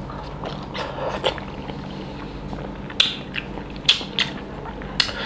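Close-up chewing of crisp raw cucumber: soft wet munching with three sharp, crisp crunches in the second half.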